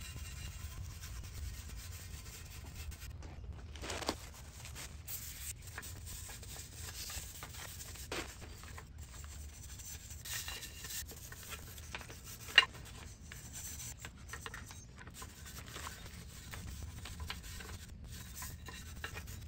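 A small bristle brush scrubbing the aluminium engine block in short, irregular strokes, with a few light clicks of the brush against the metal and one sharp tick about two-thirds of the way through.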